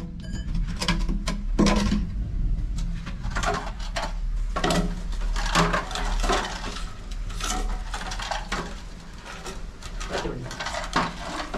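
Irregular clinks and knocks of hard objects being handled, some sharp and ringing, over a steady low hum.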